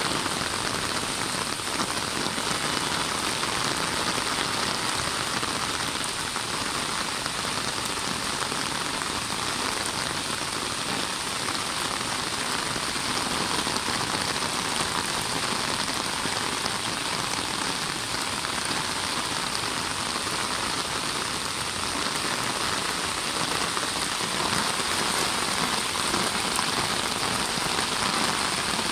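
Steady rain falling on a rooftop garden: drops pattering on the wet roof floor, plant pots and leaves.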